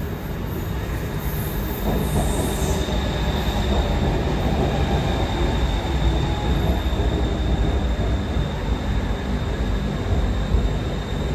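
BTS Skytrain electric multiple-unit train pulling in alongside an elevated platform: a steady rumble of wheels and running gear that gets louder about two seconds in, with a thin, steady high-pitched whine over it.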